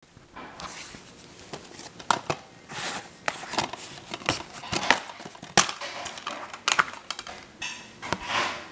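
Handling noises: an irregular run of sharp clicks and knocks mixed with short rustles of crinkling plastic, close to the microphone.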